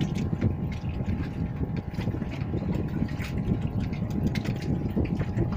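Wind buffeting the microphone over water around a floating drum boat: a dense, uneven rumble with a faint steady hum underneath and a few small clicks.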